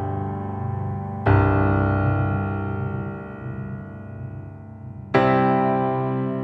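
Background music: slow electric piano chords, a new chord struck about a second in and another near the end, each left to ring and fade.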